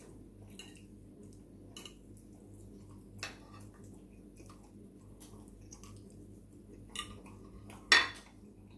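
Metal fork clicking against a ceramic plate a few times as ravioli is picked up, then set down on the plate with a louder ringing clink near the end. A faint steady low hum runs underneath.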